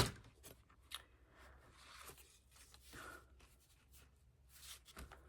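Faint rustling of paper and thread with a few light ticks, as a needle and thread are worked through the punched holes of a folded paper signature.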